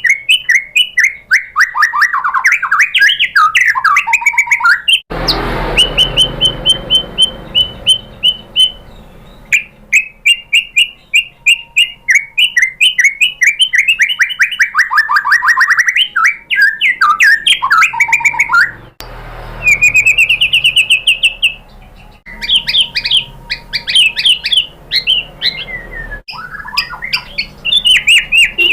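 White-rumped shama song: fast runs of repeated chirping and trilled notes, changing phrase after phrase, that break off abruptly a few times.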